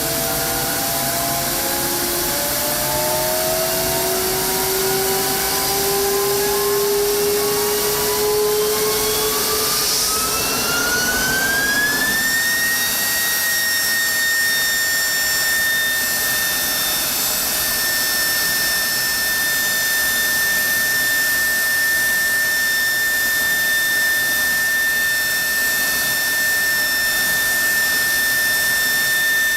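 F-16 turbofan engine spooling up inside a hush house. Its whine rises steadily in pitch for about twelve seconds, then holds as one high, steady whine over the continuous rush of the exhaust.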